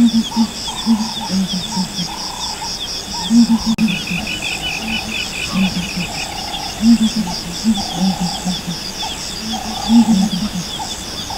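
Frogs croaking in low, repeated clusters over insects chirping in a steady, fast pulse.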